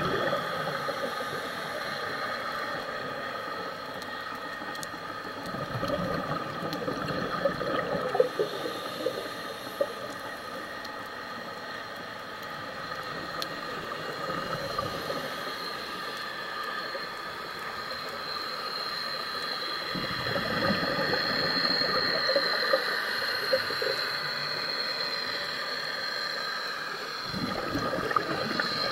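Underwater scuba breathing: bubbles from a diver's regulator exhaust gurgle in a swell every six or seven seconds with each breath, over a steady underwater hum.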